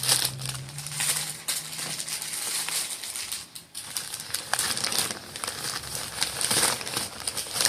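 Plastic packaging crinkling and rustling continuously as it is handled and opened, with a brief lull a little past halfway.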